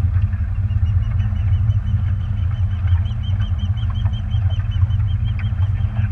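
Boat engine running steadily with a low rumble, under wind and water noise. A rapid series of short high chirps, about five a second, runs over it from about half a second in until near the end.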